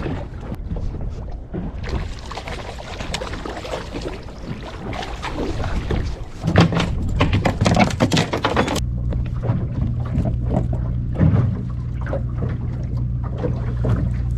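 Boat engine running steadily. Partway through comes a flurry of knocks and slaps as a freshly landed hamachi (young yellowtail) flops on the boat's metal deck.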